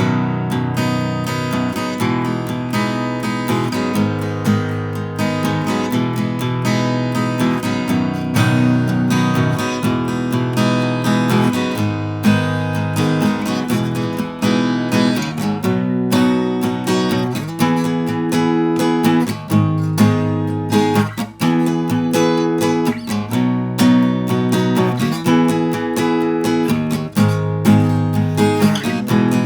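Gretsch Jim Dandy dreadnought acoustic guitar played unplugged, its own acoustic sound: continuous strummed chords.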